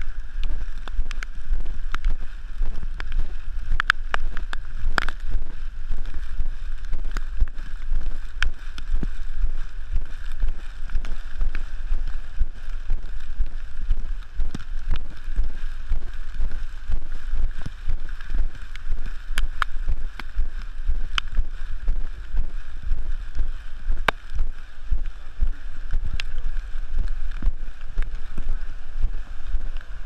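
Wind rumbling on the microphone of a moving camera, a steady low buffeting with scattered sharp taps and clicks throughout, louder ones about four to five seconds in and near the end.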